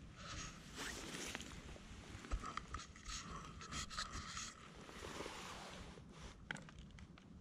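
Faint rustling and scuffing close to the microphone, with a few soft clicks.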